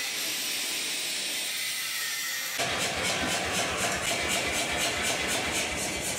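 Angle grinder cutting steel, a steady high hiss. About two and a half seconds in it gives way abruptly to a self-contained air power hammer running, a fast even beat of about three to four blows a second.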